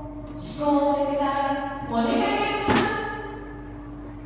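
A voice calling out in long drawn-out, chant-like notes that step down and up in pitch, with a single thud about two-thirds of the way through.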